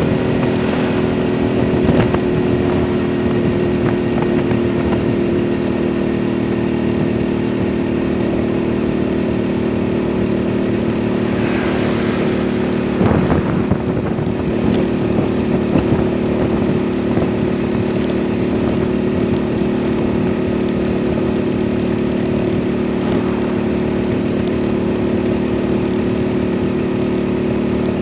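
Motorcycle engine running at a steady cruising speed, an even hum that holds its pitch, over road and wind noise. A brief rush of noise near the middle.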